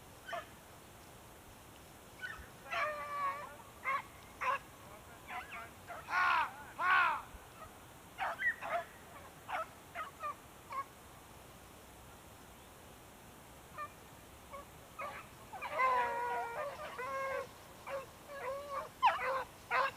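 A pack of rabbit hounds baying as they run a rabbit, their calls coming in scattered bursts, with a busy stretch of overlapping voices near the end.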